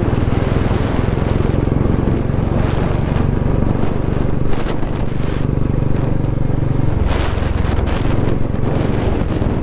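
Motorcycle engine running at road speed with wind rushing over the microphone; the engine note drops about seven seconds in.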